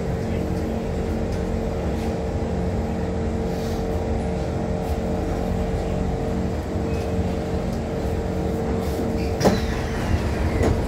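Interior of a Kawasaki Heavy Industries C151 metro train: a steady hum with a constant tone while the train stands at the platform. About nine and a half seconds in, a sharp clunk as the passenger doors open, and the tone stops.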